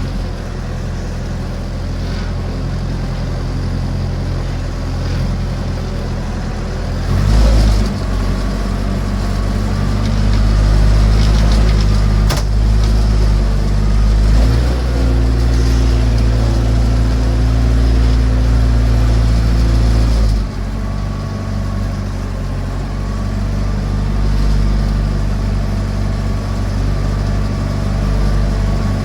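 Massey Ferguson BX 50 backhoe's engine running, its note shifting up and down as the load and revs change. There is a short louder surge about seven seconds in and a sharp knock around twelve seconds.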